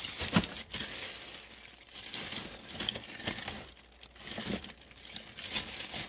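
Hands rummaging through a pile of car parts: crinkling and rustling with scattered clicks and knocks, the sharpest knock about half a second in.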